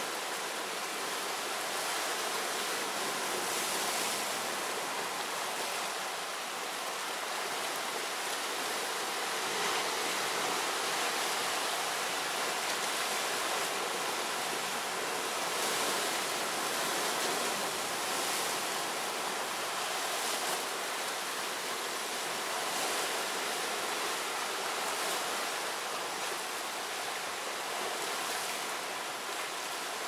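Sea waves breaking and washing over shoreline rocks: a steady rush of surf that swells and eases every few seconds.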